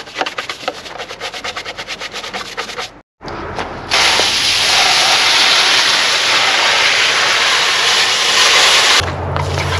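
Rapid back-and-forth scrubbing strokes on the green engine fan shroud as it is cleaned with degreaser. Then a garden-hose spray nozzle rinses it: a loud, steady hiss of water spraying onto the cover. Near the end the spray stops and a low steady hum comes in.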